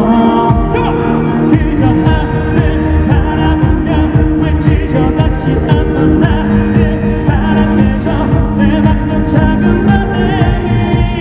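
A male singer's live vocal over the backing band, played through an arena sound system and recorded from the crowd: a Korean pop ballad with long, held, wavering sung notes.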